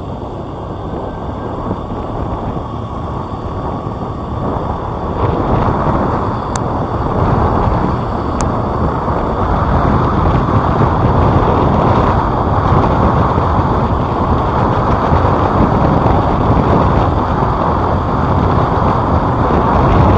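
Steady rush of wind and road noise from a moving motorbike, with the wind buffeting the microphone. It gets louder about five seconds in.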